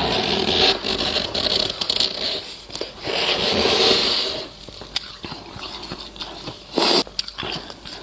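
Close-up crunching of soft, powdery freezer frost as it is bitten and chewed, in dense crackly stretches with a short sharp crunch near the end.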